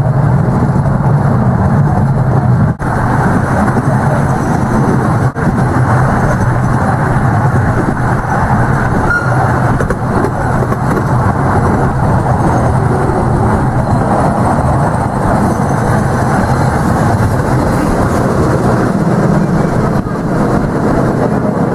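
Riding in an open passenger coach of a narrow-gauge park railway: a steady rumble of the coach's wheels running on the rails.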